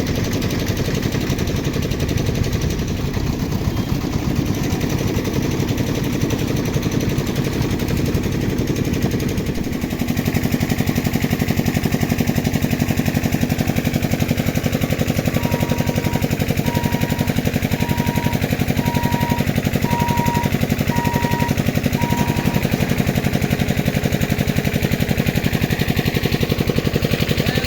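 Express passenger train passing a level crossing: a dense, rapid clatter of wheels over the rails that turns louder and more even about ten seconds in. In the middle come about seven short, evenly spaced high beeps, roughly one a second.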